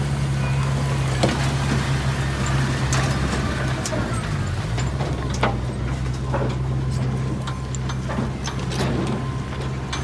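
Komatsu mini bulldozer's diesel engine running steadily, with scattered knocks; the engine note dips briefly about halfway through, then recovers.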